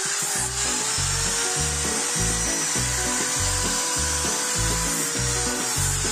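Angle grinder with a sanding disc running and rubbing against a wooden knife-handle piece, a steady whine with a hiss of abrasion. Background music with a steady bass beat plays along with it.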